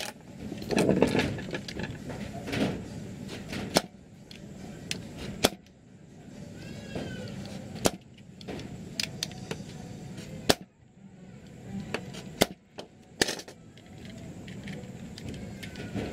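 Utility-knife blade scraping and prying at the seam of a swollen Hubsan Zino drone battery's plastic case: a loud scraping stretch about a second in, then a scattered series of sharp clicks and cracks. A brief high chirp sounds about seven seconds in.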